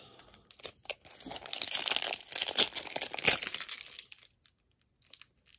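Foil wrapper of a Topps baseball-card jumbo pack crinkling and tearing as it is ripped open. The crackling starts about a second in, lasts about three seconds and stops.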